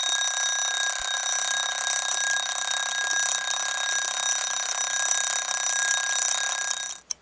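Mechanical twin-bell alarm clock ringing continuously, a steady high metallic ring that breaks off briefly near the end.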